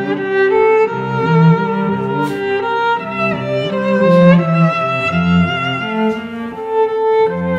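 Background music played on bowed strings: held violin notes carrying a melody over a lower cello line.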